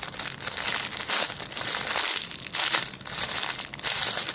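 Continuous crinkling and crumpling as a squishy toy is handled and squeezed close to the microphone, starting suddenly.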